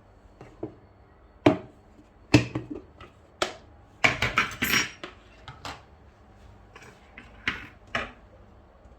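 Kitchenware being handled on a counter: a string of sharp clinks and knocks, about a dozen, with a busier cluster a little past the middle.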